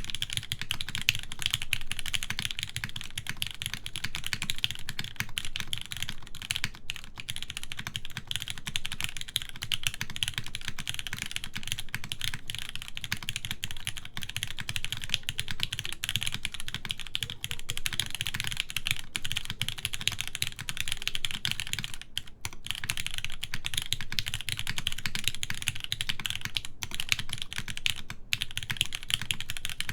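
Continuous typing on a Kitsune mechanical keyboard with Gateron Oil King linear switches, GMK Fundamentals keycaps and a full aluminum plate in a top mount. The key presses come in a dense, steady stream, broken by a few very short pauses.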